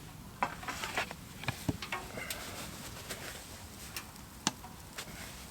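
Scattered light clicks and knocks of cookware being handled at a small wood-burning tent stove's oven: the metal oven tray and the oven being worked as a pizza goes in. About a dozen sharp ticks, thickest in the first few seconds, with one louder knock near the end.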